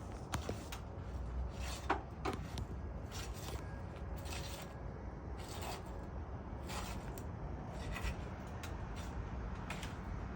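Scattered scrapes and clicks of a flat bar prying under roof shingles to work out the nails, over a steady low rumble.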